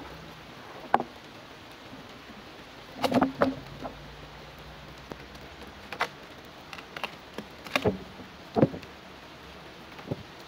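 Thick sawn planks of salvaged hardwood knocked against one another as they are handled and set down on a pile: a string of sharp wooden knocks at irregular intervals, some in quick clusters, each with a short ring.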